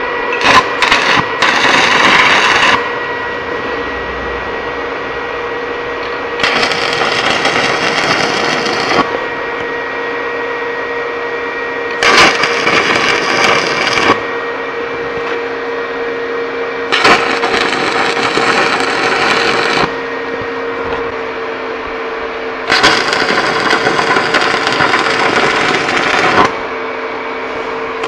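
Electric arc welding of studs onto steel spacers, in five separate bursts of two to four seconds each, over a steady hum.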